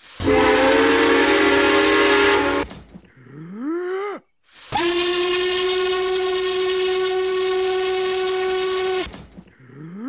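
Steam locomotive whistles: a chime whistle with steam hiss, blown for about two and a half seconds (ATSF 3751's whistle), then a long steady whistle for about four seconds (N&W 1218's whistle). Between them, and again near the end, comes a short rising cartoon yell.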